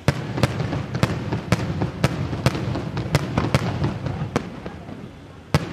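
Daytime fireworks barrage: a rapid series of sharp bangs, about two a second, over a continuous low rumbling crackle. It eases off about five seconds in, then one more loud bang comes near the end.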